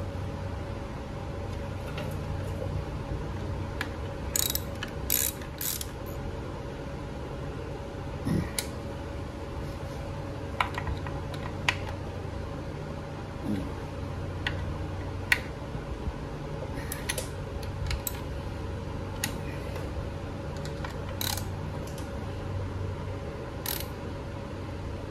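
Hand ratchet clicking in short, irregular spells as the Allen-head bolts on a Harley-Davidson Shovelhead's primary cover are tightened down snug.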